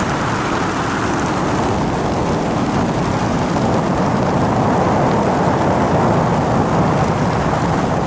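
Steady, loud wind noise rushing over the camera microphone during a skydive.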